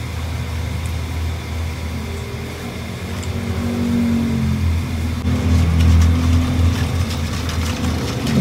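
A steady low hum runs throughout. From about halfway, liquid sloshes and splashes in a stainless steel bowl as a hand mixes the soy-sauce marinade.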